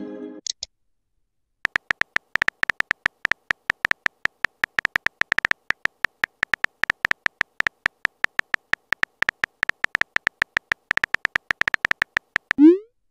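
Rapid, irregular clicks of a phone keyboard typing sound effect, several a second, as a text message is typed letter by letter. A short rising blip sounds near the end.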